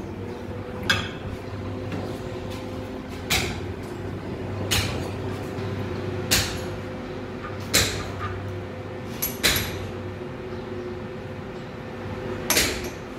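Sharp metal clanks, one every second or so, some in quick pairs, as an angle grinder is handled and clamped into a lathe's tool post. A steady machine hum runs underneath.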